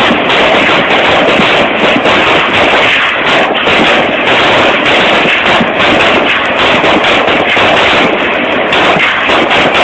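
Live-fire barrage: many shots and impact blasts overlapping into one loud, unbroken, distorted crackle with no pause.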